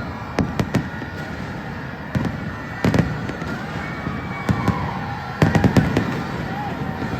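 Aerial fireworks bursting: sharp bangs at irregular intervals, with a quick run of several bangs about five and a half seconds in, over a steady crackling haze.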